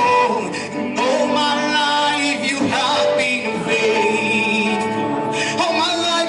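A man singing a gospel song live into a microphone, holding notes with vibrato, over electronic keyboard accompaniment.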